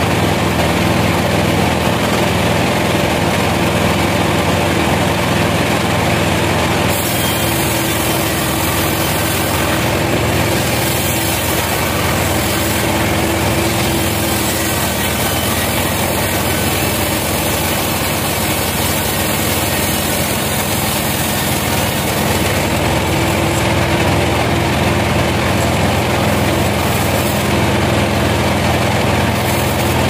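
Large band sawmill running steadily, its blade sawing lengthwise through a log.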